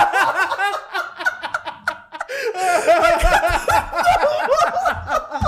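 Two men laughing hard together in quick repeated ha-ha pulses, with a couple of low thuds.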